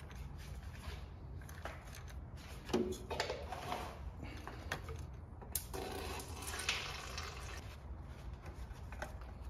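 Faint hand-work sounds: small metal clicks and scrapes as a bolt is fitted by hand, then the rustle of a paper shop towel wiping, over a low steady hum.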